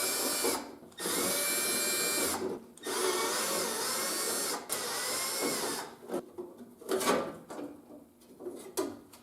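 Cordless drill-driver running in four short bursts, its motor whine rising as each burst starts and dropping as it stops, as it backs out screws holding the door handle assembly. A few knocks of the tool and parts follow, the loudest about 7 s in.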